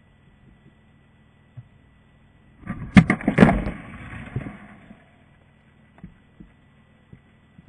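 Water bottle rocket launching off a Clark cable tie launcher: a sudden rush of pressurised water and air about three seconds in, with two sharp cracks at the start, dying away in under two seconds.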